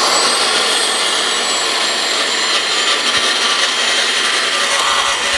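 Rear-tine tiller running with 3D-printed plastic tines churning into turf and soil: a steady whirring, gritty scraping of dirt and grass. A high whine rises in pitch in the first second as the tines spin up.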